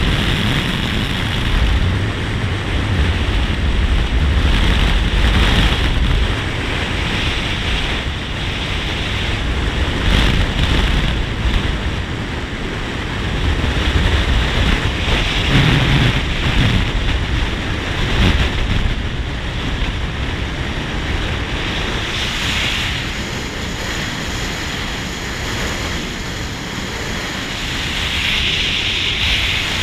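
Wind rushing over the microphone of a camera mounted outside a moving car, with tyre and road rumble underneath. The rush grows and eases in strength as the car drives.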